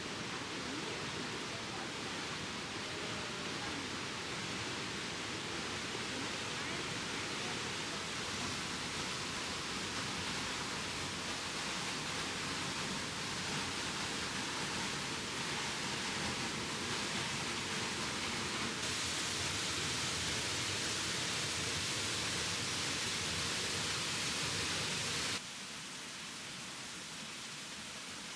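Steady, even rush of water from Peričnik waterfall, with the level stepping down noticeably about 25 seconds in.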